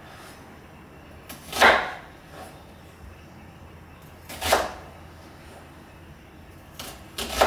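Kitchen knife slicing down through a red onion onto a wooden cutting board: three single cuts about three seconds apart, each a brief slicing sound ending on the board.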